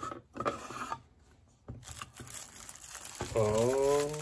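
The sliding wooden lid of a watch box scrapes open, then the plastic bag wrapping the watch crinkles as it is handled. Near the end a short wordless sound from a man's voice, falling then holding in pitch, is the loudest thing heard.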